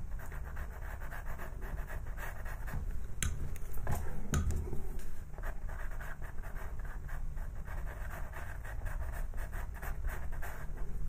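Pastel pencil scratching across textured pastel paper in quick, short strokes, the Payne's grey shading being built up on a small drawn boat.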